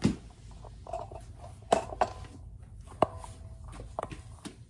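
A handful of sharp clicks and knocks, about six spread irregularly, a couple of them with a brief ring after them, over a low room hum.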